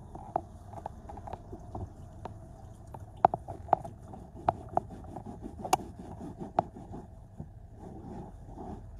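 A cloth scrubbing and rubbing at spilled paint in car floor carpet, with irregular sharp clicks and taps several times a second over a faint steady hum.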